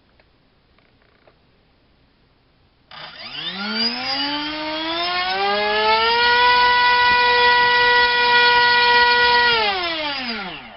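RCinpower QAV2206-1900KV brushless motor spinning a HobbyKing 6x4.5 ball-nose propeller on a 3-cell battery in a static thrust test. It starts suddenly about three seconds in, its whine rising in pitch as the throttle comes up, holds steady at full speed for a few seconds, then falls in pitch and stops as it spools down near the end.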